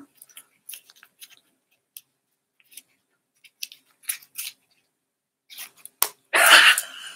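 A small folded paper slip (a raffle lot) being unfolded by hand: scattered crisp paper crackles and rustles, with a louder burst of crinkling about six seconds in.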